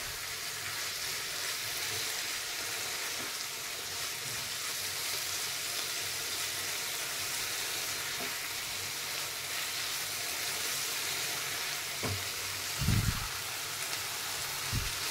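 Minced mutton (keema) sizzling in hot oil in a non-stick kadhai while a spatula stirs and turns it, the bhuna stage of browning the raw meat. A few low thumps come near the end, the loudest about two seconds before the end.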